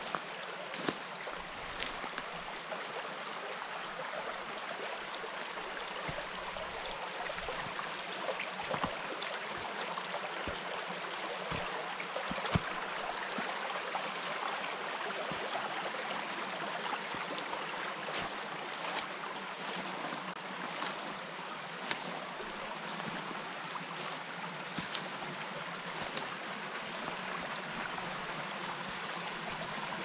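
Steady rushing of running water, with a few faint clicks scattered through it.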